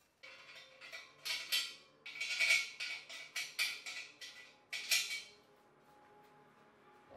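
Handling noise from the steel frame of a pull-up and dip station being assembled: a run of short clattering and scraping sounds as the frame and its padded rest are moved about, stopping about five seconds in.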